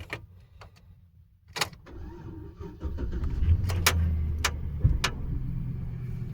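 2006 Chevrolet Silverado with a failing starter being tried: a few sharp clicks, then a steady low drone from about three seconds in with more clicks over it. It is the sound of a starter that needs replacing.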